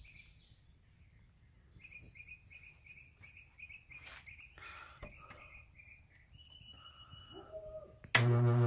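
Birds chirping in a repeated high call over faint outdoor background. Near the end, a compressor motor stator on 240 V AC bursts into a sudden, very loud, steady electrical buzz, a deep mains hum with many overtones: its windings are shorting out.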